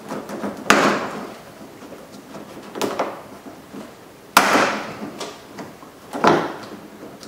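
Ford Focus plastic lower grille being pulled out of the bumper cover: four sharp plastic snaps, each trailing off briefly, as its clips and tabs pop loose.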